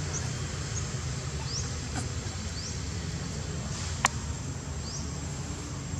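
A handful of short, high chirps, each rising quickly in pitch, scattered over a steady low outdoor rumble, with one sharp click about four seconds in.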